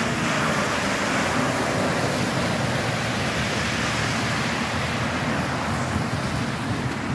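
A box truck and then a car driving through deep floodwater on a street: a steady rush of spray from the tyres over the low sound of their engines.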